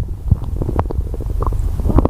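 Stomach growling: irregular low rumbling and gurgling with a few short pops.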